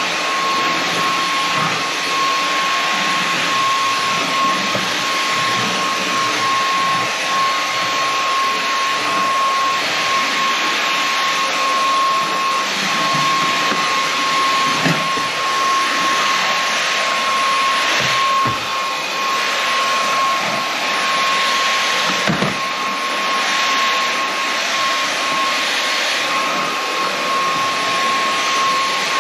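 Inse S610 cordless stick vacuum running steadily: a constant high whine over a hissing rush of suction, with a few brief knocks partway through.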